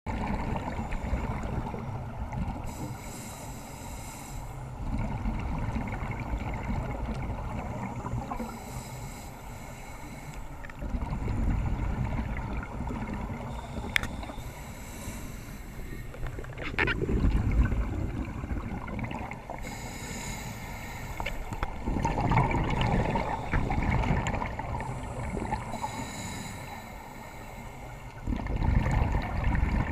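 Scuba regulator breathing heard underwater: a hissing inhale about every five or six seconds, each followed by a low gurgling gush of exhaled bubbles.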